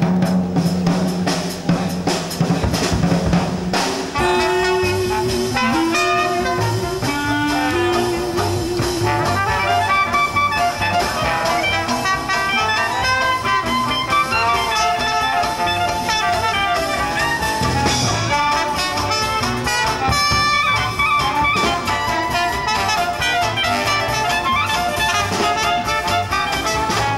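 Live jazz band: drums play alone for the first few seconds, then trumpet, clarinet and trombone come in together over the drums and a low bass line.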